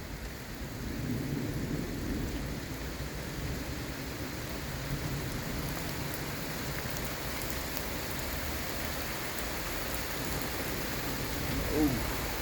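Steady rain falling during a thunderstorm, with a low rumble of thunder swelling in the first few seconds. A brief louder sound comes near the end.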